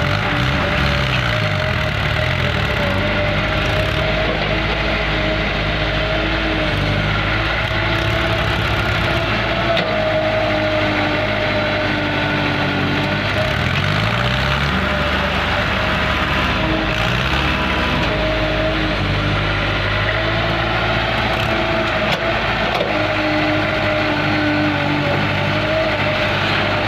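Caterpillar 365C excavator's diesel engine running steadily under working load, its note sweeping in pitch about a second in and again about halfway through as the engine speed changes.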